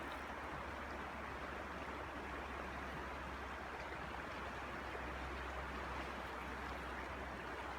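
River water flowing: a steady, even rushing hiss with a low rumble beneath, unchanging throughout.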